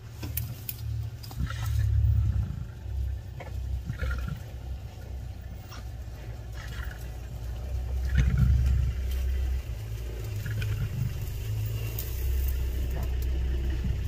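Lions feeding on a warthog carcass: scattered tearing and crunching sounds over a continuous low rumble that swells several times.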